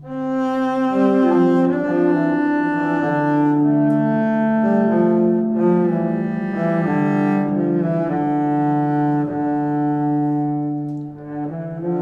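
Background music with slow, sustained bowed-string notes in the low register, several at once, changing pitch every second or so.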